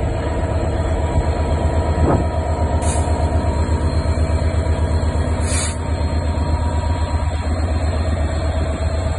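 EMD Class 66 (JT42CWR) locomotive's 12-cylinder two-stroke diesel working hard under load, a loud, deep, rhythmically pulsing rumble as it hauls a heavy coal train of about 3800 tonnes away. Two short hisses cut in, about three seconds in and again about two and a half seconds later.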